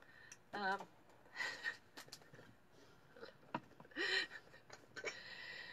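Brief non-speech vocal sounds from a person: a short voiced murmur about half a second in, then breathy gasps and an exhale, with a few light clicks between them.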